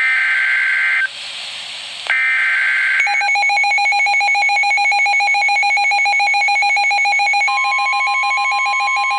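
Emergency Alert System SAME header: two bursts of shrill, warbling digital data tones about a second apart, with hiss between them. Then the EAS alert tone begins as a rapidly pulsing, buzzing alarm, and a steady, higher single tone joins it about seven seconds in.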